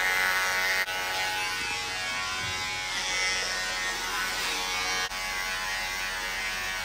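Electric hair clipper buzzing steadily as it cuts through hair, with two very short breaks about one and five seconds in.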